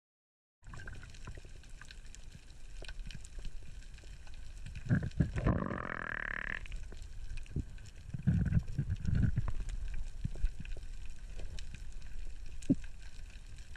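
Underwater reef ambience picked up by a camera beneath the surface: a steady fine crackling over low rushing water, with a few louder gurgling surges of water and bubbles. A short rising whine comes about five and a half seconds in.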